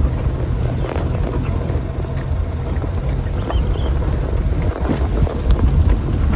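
Wind buffeting the microphone: a steady, fluttering low rumble with a few faint ticks over it.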